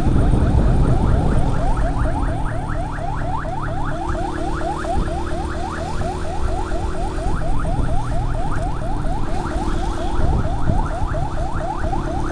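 Electronic yelp siren sweeping rapidly up and down, about six times a second, over the running engine and road noise of vehicles moving through traffic.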